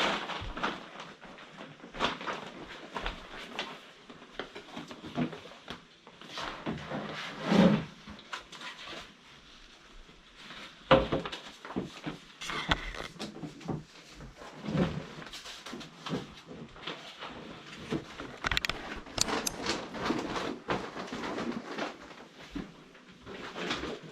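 Irregular knocks, clicks and rustling, as of objects being handled and moved in a small room, with louder knocks about seven and eleven seconds in.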